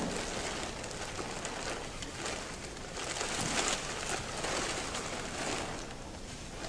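Steady background noise of a large convention hall, with a few brief rustles and knocks from a display poster being handled, the clearest about halfway through.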